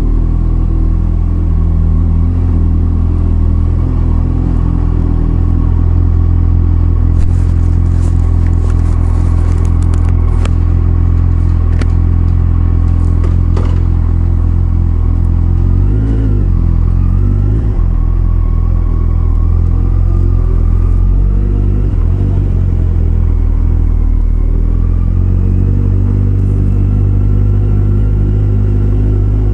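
Kawasaki Concours 14's inline-four engine running at low, fairly steady revs as the motorcycle rides slowly. The pitch dips and rises briefly about sixteen seconds in, and a scatter of sharp clicks comes between about seven and fourteen seconds in.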